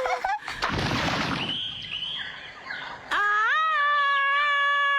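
Cartoon sound effects: a swoosh, then from about three seconds in a long, held animal call that rises at its start.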